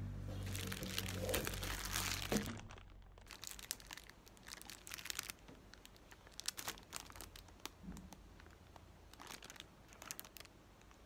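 Crinkling of the plastic packaging on new kitchen utensils (packaged cutlery, a silicone ladle and a silicone brush) as they are picked up and handled. It is loudest and most continuous over the first two seconds or so, then comes in shorter spells of crackles.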